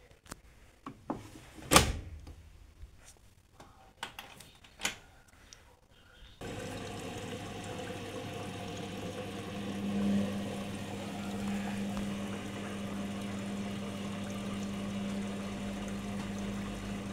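A few clicks and one sharp knock, then about six seconds in the Arçelik 7103 front-loader's water inlet suddenly opens and water rushes in for the prewash fill. A low steady hum joins about three seconds later as the drum motor starts turning the load.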